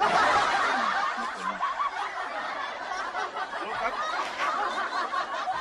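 Many people laughing together, a crowd or audience laugh that breaks out suddenly and then eases off slightly.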